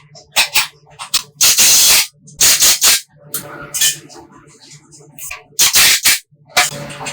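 Aerosol spray can spraying in short bursts of hiss, the longest about half a second, with quick clicks and rattles between the bursts.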